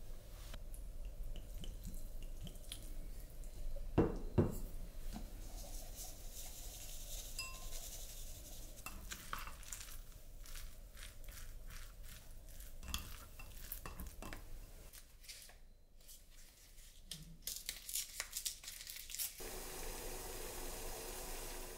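Kitchen work sounds: dishes and utensils clinking and knocking, with two louder thumps about four seconds in, and a steady hiss starting near the end.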